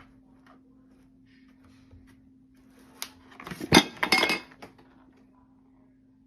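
A sharp click, then a brief clinking clatter of hard objects knocking together and falling, about three to four and a half seconds in.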